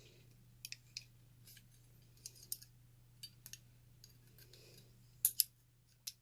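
Small metal clicks and light scrapes of pistol parts (slide, barrel and guide rod) being handled and fitted together, with two sharper clicks close together about five seconds in.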